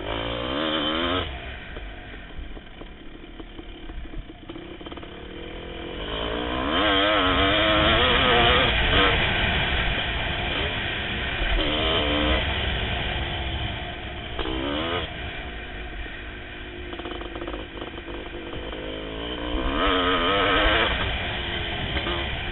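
1988 Kawasaki KX500's two-stroke single-cylinder engine ridden hard, its pitch rising and falling through several bursts of acceleration between easier stretches, loudest about a third of the way in and again near the end. Wind noise on the helmet microphone underneath.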